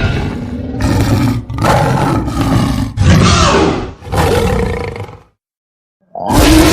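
Composite roar sound effect spliced from several animal and creature roars, such as dinosaur, lion and tiger roars, heard as about four loud growling roars one after another. It stops for about a second, then a new loud sound starts near the end.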